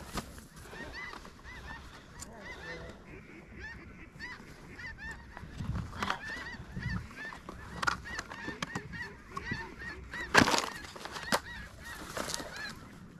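A flock of geese honking, many short calls overlapping throughout. A single loud, sharp bang sounds about ten seconds in.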